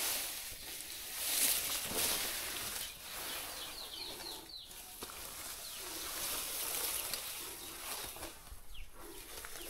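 Grass and leaves rustling as someone moves through tall undergrowth, in soft swells. About three and a half seconds in, a bird gives a quick run of about five short, high, falling chirps.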